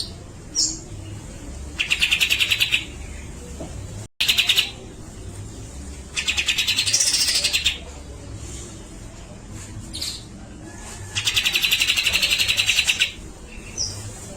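Grey-cheeked bulbul (cucak jenggot) singing. It gives repeated rattling chatters of rapid buzzy notes, each about a second or two long, in the rapid 'besetan' style. Short sharp whistled notes fall between the chatters.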